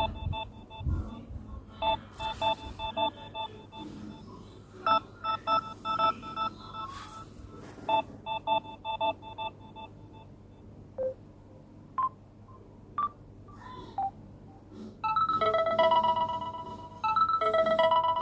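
Samsung Galaxy A12 ringtones playing from the phone's speaker: clusters of rapid electronic beeps repeat every couple of seconds, then a few single beeps at different pitches, and about fifteen seconds in a melody of longer notes begins.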